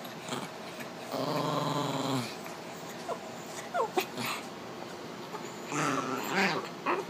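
A miniature pinscher and a chihuahua mix play-fighting: a long growl about a second in, a short high whine a little before the middle, and more growling with a whine near the end.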